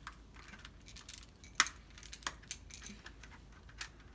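Small plastic toy pieces and packaging being handled: a scatter of light clicks and taps, the sharpest about a second and a half in.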